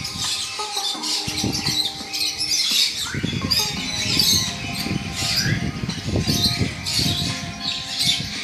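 Background music with many short, high bird-like squawks and chirps over it; a low rumbling noise joins about three seconds in and makes it louder.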